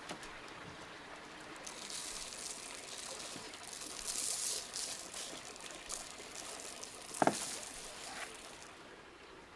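Liquid pouring, swelling to its strongest around the middle and then fading, with one sharp knock near the end.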